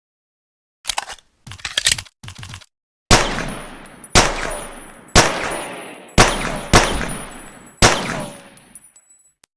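Pocket pistol sound effect: a few short mechanical clicks of the gun being handled, then six sharp shots about a second apart, the last two closer together, each followed by a long echoing decay.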